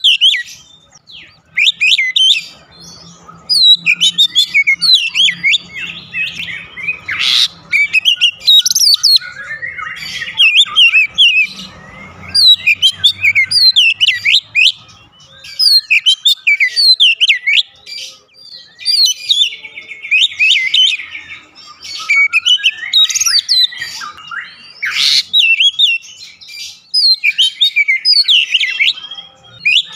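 Oriental magpie-robin (kacer) singing: a rapid, varied run of sweeping whistles and chirps in phrases broken by short pauses.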